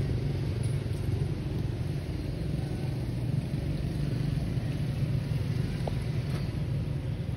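A steady low rumble, even in level throughout, with one brief faint squeak about six seconds in.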